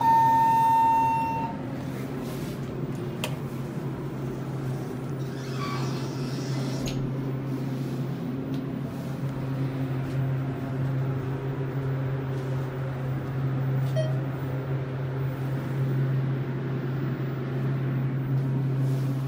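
ThyssenKrupp elevator: a single steady beep from the hall lantern lasts about a second and a half at the start, as the down arrow lights. After it comes a steady low hum from the car as it travels, with a brief soft rush about six seconds in.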